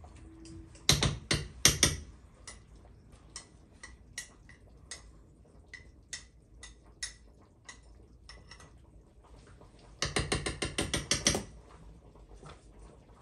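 Spoon clinking and tapping against a small bowl as food is scooped out into a cooking pot. There is a loud cluster of knocks about a second in, then scattered light clicks, and near the end a rapid run of about a dozen taps.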